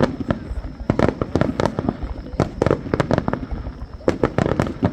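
A fireworks display: shells bursting in rapid runs of sharp bangs and crackles, several every second.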